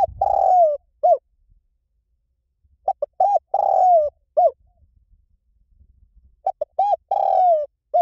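Spotted dove cooing. The phrase repeats about every three and a half seconds: a few short coos, a long coo that falls in pitch at its end, then one short final coo.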